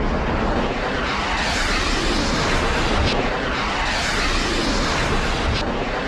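Explosion sound effect for a cartoon bomb: a loud, steady, rolling rumble of noise that carries on for several seconds after the blast.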